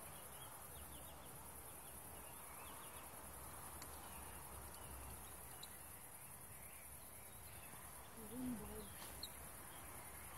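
Faint evening outdoor ambience dominated by a steady high-pitched chirring of insects, which breaks off briefly about a second in and again about eight seconds in. A short low call is heard about eight and a half seconds in.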